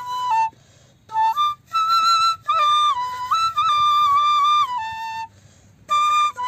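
Hindustani bamboo flute (bansuri) playing a slow phrase of a Madhyamavati-raga melody: held notes stepping up and down between a few pitches, broken by two short breath pauses, the phrase dropping to a lower note before the second pause.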